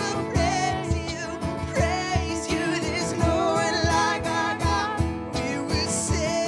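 Worship band music with a steady beat: a singer vocalising without words over guitar and sustained chords.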